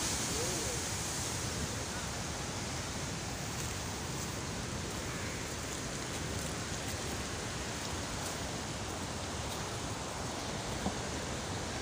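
Steady, even rushing noise of floodwater, without a break, with one small knock near the end.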